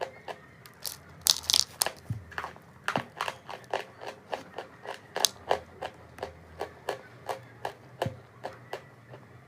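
Chalk crunching and crumbling: a quick, irregular run of sharp crackles, several a second, loudest a little over a second in.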